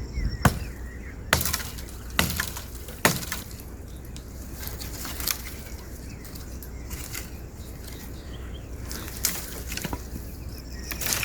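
Four loud sharp cracks about a second apart, then lighter scattered clicks and crackling that grow busier near the end.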